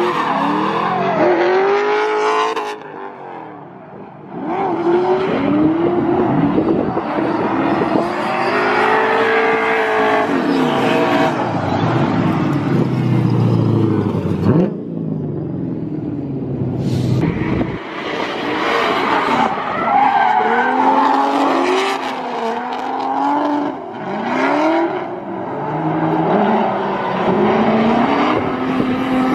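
Drift cars sliding around a cone course: engines revving up and down again and again over the squeal and hiss of skidding tires.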